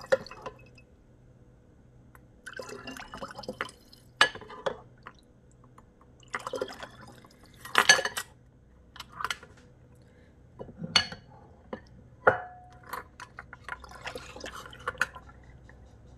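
Milk being scooped and poured with a metal ladle from a bowl, in scattered bursts of splashing and dripping with sharp clinks of the metal against the bowl and a stainless steel cup. One clink a little after twelve seconds rings briefly.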